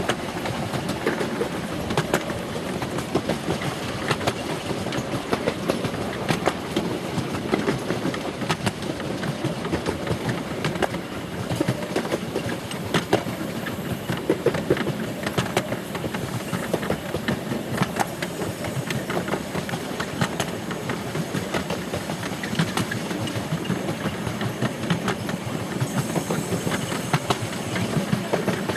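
Miniature railway train running along the track, its small open carriages rumbling steadily with frequent sharp clicks from the wheels over the rail joints. A faint high whine joins in near the end.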